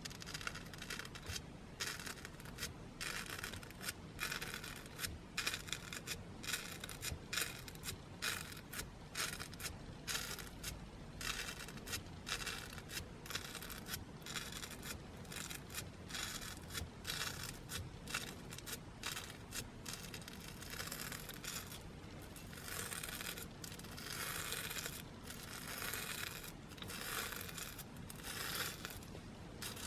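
Slime being squeezed and worked by hand: a rapid, uneven run of short crackling, squishing noises, about two a second, running into longer, denser stretches in the last several seconds.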